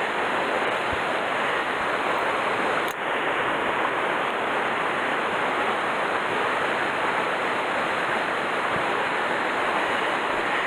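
Mountain stream rushing over rocks: a steady, even wash of flowing water.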